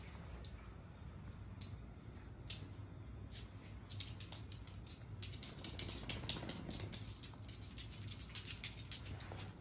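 Bichon frise dogs' claws clicking on a hard stone floor as they trot about, quick irregular taps that come thickest about halfway through.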